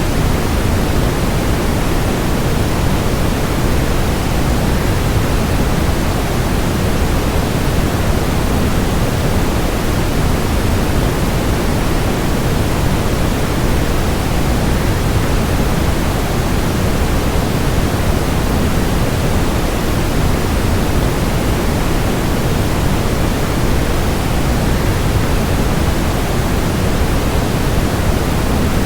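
Waterfall rushing: a steady, even noise, heavier in the low end, unchanging throughout.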